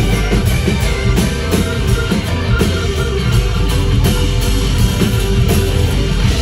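Live band playing an instrumental passage at full volume: acoustic and electric guitars, bass guitar, drum kit and keyboard, with a steady drum beat.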